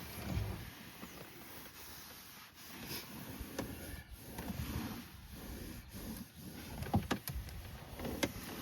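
Dusting the inside of a truck cab: a duster or cloth rubbing and rustling over interior surfaces, with a few light clicks or knocks now and then.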